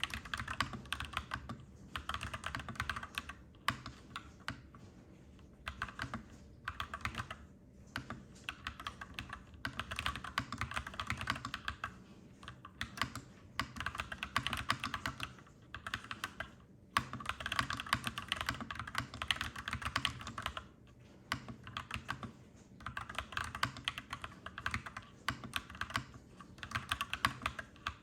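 Mechanical keyboard with clacky keys being typed on in bursts of a few seconds, with brief pauses between them.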